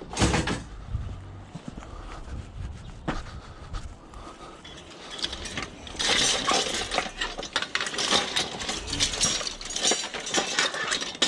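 Pieces of scrap metal clanking and clinking as they are handled and moved, with a few knocks at first and then a busy run of clatter from about six seconds in.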